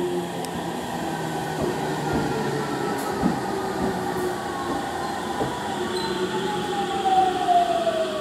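JR Central 313 series electric train pulling in and slowing, with a steady rolling rumble and a few knocks from the wheels. A whine falls steadily in pitch as it slows and is loudest near the end.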